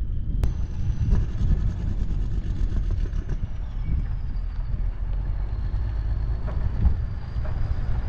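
Steady low rumble of a semi truck and its flatbed trailer starting off and rolling along a gravel road, heard from the back of the trailer.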